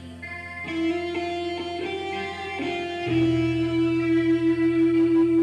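Godin Redline HB electric guitar, freshly given a pro setup, played through an amplifier: a few quick single notes, then one long sustained note held from about three seconds in.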